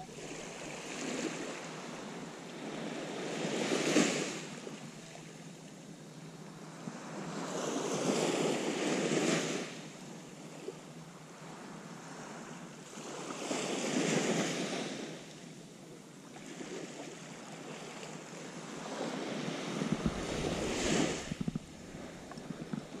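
Small waves breaking and washing up a sandy beach, swelling and fading about every five seconds, four surges in all.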